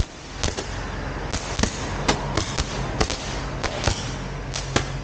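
Firecrackers going off one after another: sharp separate bangs at an uneven pace of about three a second, the loudest right at the start, over a steady low hum.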